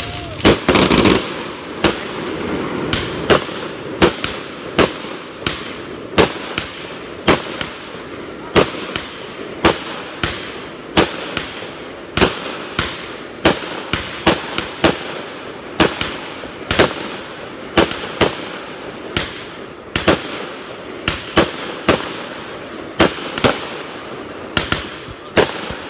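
Fireworks going off close by: a long string of sharp bangs, about one to two a second, as shots launch and burst in the air.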